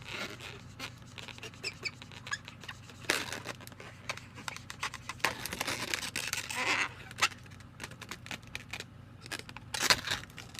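Latex modelling balloons being handled and twisted, giving irregular rubbing and clicking with a few short squeaks.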